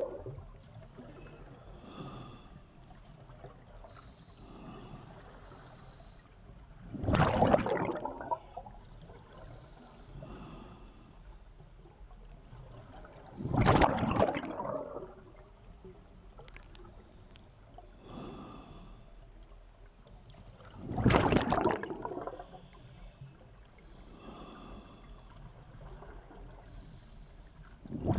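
Scuba diver's exhaled breath bursting out of the regulator as bubbles, heard underwater: four loud bubbling exhalations, each lasting about a second, spaced roughly seven seconds apart.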